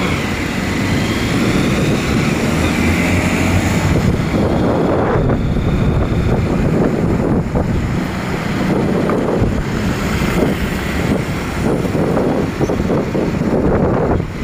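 Wind buffeting the microphone of a moving two-wheeler, over a steady rush of road and traffic noise.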